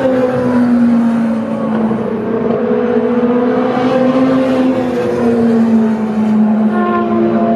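Super Formula race cars' turbocharged two-litre four-cylinder engines running on track, loud and continuous, with more than one engine note overlapping and their pitch rising and falling. A new, higher engine note comes in near the end.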